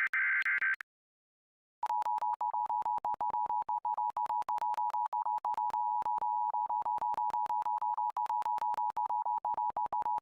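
Emergency Alert System broadcast signal. The end of a SAME header data burst stops just under a second in. After a second's pause comes the two-tone EAS attention signal (853 and 960 Hz), held steady but chopped by many brief dropouts from a laggy stream.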